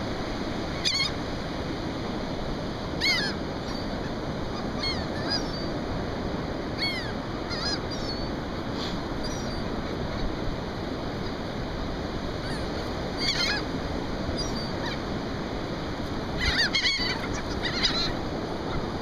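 Laughing gulls calling in short, bending squawks every second or two, with a burst of calls near the end, over a steady wash of surf and wind noise.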